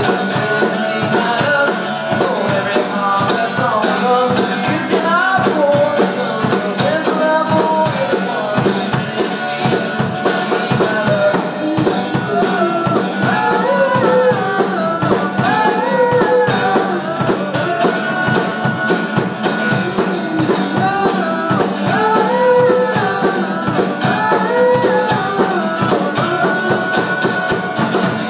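A man singing a pop-folk song, strumming an acoustic guitar, with a drum kit playing along.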